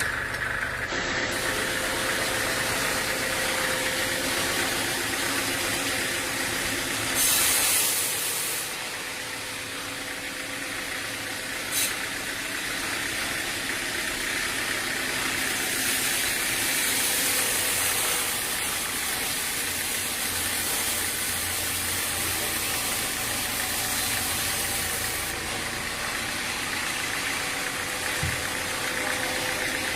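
Machinery running steadily, an engine-like hum with hiss, with a louder burst of hissing about seven seconds in and a single sharp click a few seconds later.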